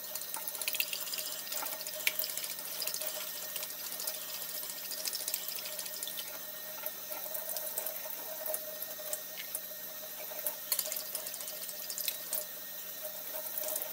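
Metal fork beating raw eggs in a bowl: quick, irregular clicks of the tines against the bowl with liquid sloshing, over a faint steady hum.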